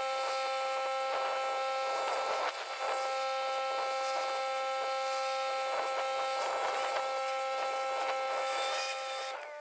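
Pressure washer running with a steady whine over the hiss of water spraying a concrete driveway. It eases off briefly about two and a half seconds in, and the whine drops out near the end.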